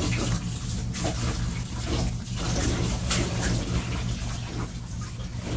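A dog chewing broccoli close to the microphone: crunching and mouth noises in quick irregular clicks, over a steady low hum.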